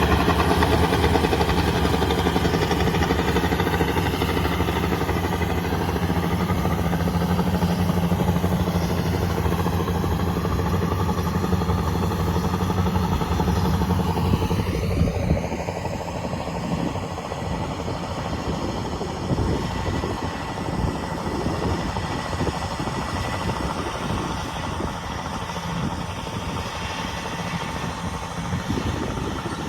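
Yanmar 820 combine harvester's diesel engine running steadily. About halfway through, the steady low hum changes with a brief shift in pitch, and the sound becomes rougher and less even.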